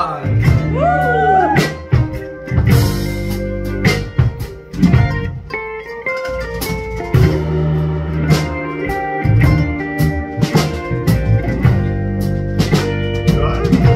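Live band music: an F-style mandolin picked over keyboard chords, with drums keeping a steady beat.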